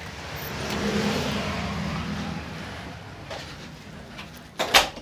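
A swell of outdoor rushing noise with a low hum that rises and fades over the first few seconds, then a door banging shut with a loud double knock near the end, after which the outside noise is cut off.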